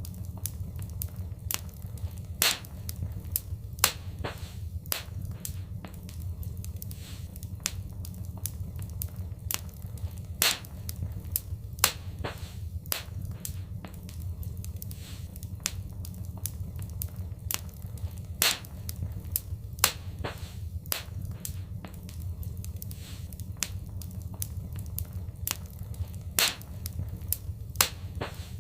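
Fireplace wood fire crackling: irregular sharp pops, several a second and a handful louder than the rest, over a steady low rumble of burning.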